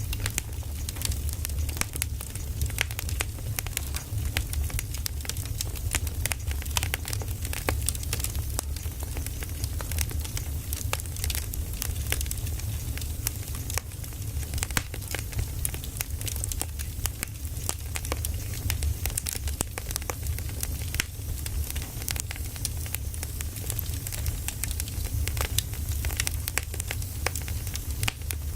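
Firewood burning, with irregular crackles and snaps over a steady low rumble.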